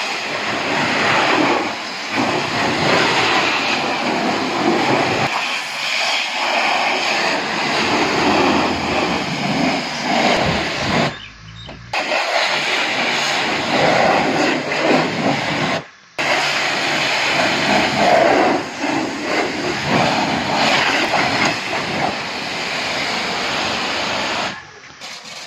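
High-pressure washer jet spraying water onto a car, a steady loud hiss of spray. It breaks off briefly about eleven and sixteen seconds in and drops away near the end.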